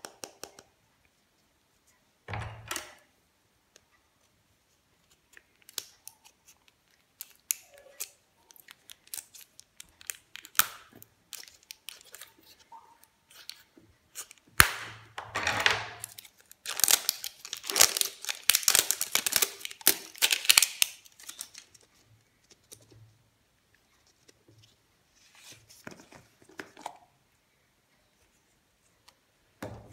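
Plastic wrapping crinkling and tearing as it is pulled off a plastic candy surprise ball, with scattered clicks and knocks of the hard plastic shell. A thump comes about two and a half seconds in, and the crinkling is loudest and densest about halfway through.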